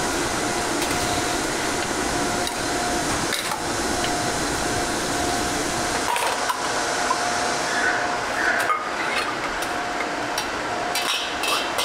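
Steady hiss of a gas wok burner and broth boiling in a wok, with a faint steady tone underneath. Near the end a perforated metal strainer knocks and clinks a few times as cabbage is tipped from it into a clay pot.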